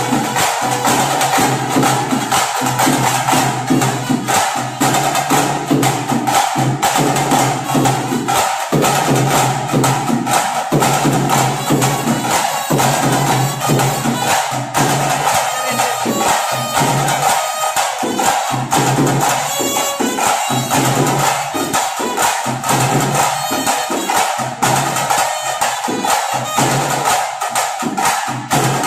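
Live folk percussion: drums and sticks beaten in a fast, unbroken rhythm, with a steady held tone running under it.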